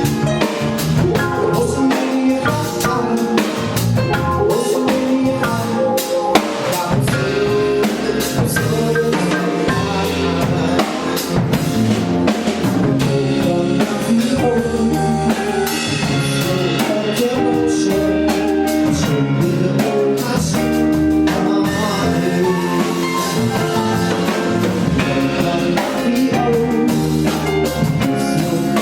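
A band playing a song live at a sound check, with a drum kit keeping a steady beat under bass and other pitched instruments.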